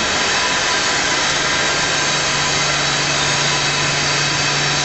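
Stainless steel liquid detergent mixing tank running, its agitator drive giving a steady mechanical drone with a low hum that grows stronger about two seconds in.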